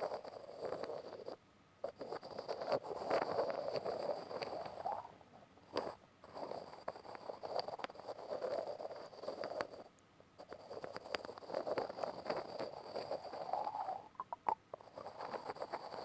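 Close-up grinding and scratching sounds in repeated stretches of three to four seconds each, with many small clicks and brief pauses between stretches.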